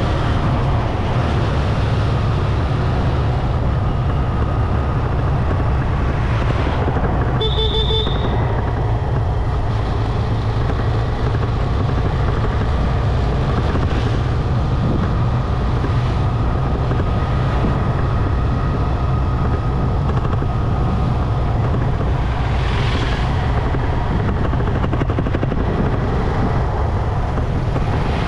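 Steady low rumble of wind buffeting and road noise on a riding motorcycle, with the bike's engine running underneath. A short high-pitched beeping sounds about eight seconds in.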